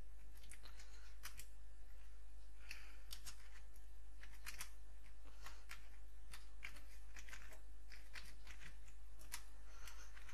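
Computer keyboard being typed on: irregular keystroke clicks, some in quick runs, over a low steady hum.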